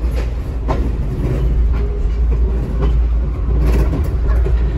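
A vintage railroad passenger coach rolling along the track: a steady low rumble, with a few sharp clacks from the wheels and running gear at uneven intervals.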